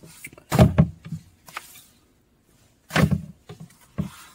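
Paper magazines being handled and set down: a few short knocks with rustling, the loudest just over half a second in, another at about three seconds and a smaller one at about four.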